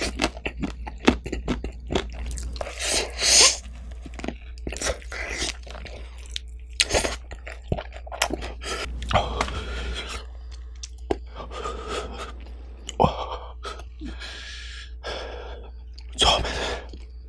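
Close-miked chewing of spicy sauce-coated fried chicken, with wet crunches and mouth clicks throughout. Two sharp hissing breaths, about three seconds in and near the end, are the eater reacting to the chili heat.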